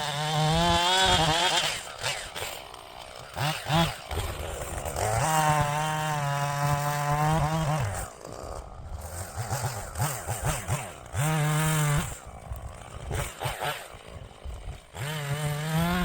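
Chainsaw run up to full throttle in four bursts of about one to three seconds each, held at a steady high pitch, with quieter low running in between.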